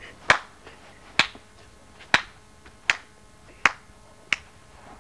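Six sharp hits of blows in a staged fight, evenly spaced about one every three-quarters of a second.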